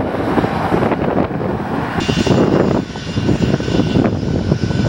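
Jet engines of a Boeing 737 airliner on its landing roll, mixed with heavy wind buffeting on the microphone. About two seconds in, the sound changes abruptly to the steady high whine of a small business jet's engines as it taxis.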